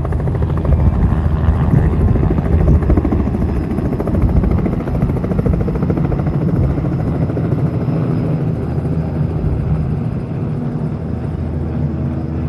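Light helicopter with a two-blade main rotor lifting off and climbing away: steady, loud rotor and engine noise, loudest in the first few seconds and fading a little near the end as it moves off.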